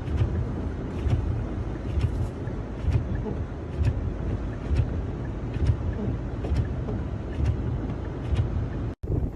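Wind buffeting the microphone in a snowstorm: a heavy low rumble that surges in irregular gusts, with light ticks over it. It cuts off abruptly near the end.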